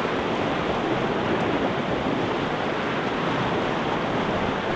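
Shallow river rushing over rocks and riffles, a steady, even rush of water.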